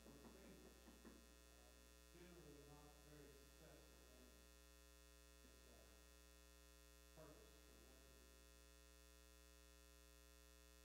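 Near silence: a steady electrical mains hum on the audio feed, with faint, indistinct talking now and then in the first half.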